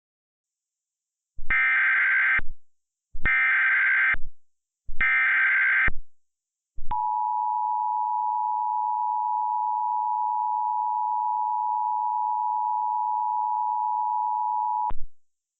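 Emergency Alert System broadcast tones. First come three roughly one-second bursts of SAME digital header data, a warbling electronic screech. About a second later the steady two-tone EAS attention signal sounds for about eight seconds and then cuts off.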